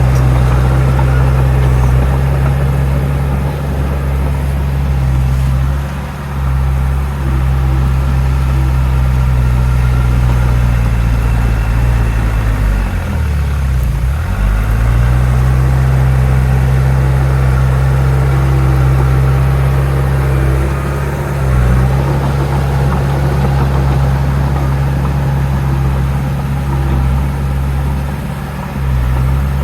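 Heavy diesel engine of earthmoving equipment running steadily under work. About halfway through, its pitch sags sharply and then climbs back.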